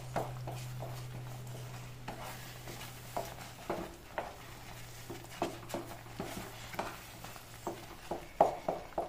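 Wooden spatula stirring a thick semolina kesari in a steel pan, scraping and knocking against the pan in repeated short strokes about every half second. A steady low hum runs underneath and fades out near the end.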